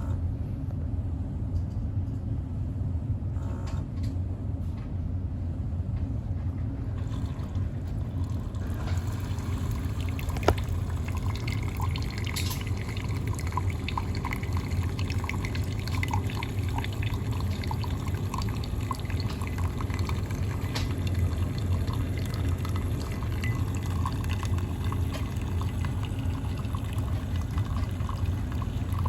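Bosch Vero Barista coffee machine running with a steady low hum. From about nine seconds in, liquid pours and drips with small ticks.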